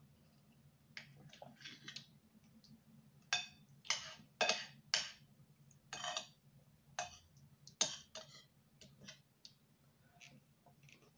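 Close-miked eating of oatmeal fufu with soup: irregular wet mouth clicks and smacks of chewing, coming in a louder cluster through the middle.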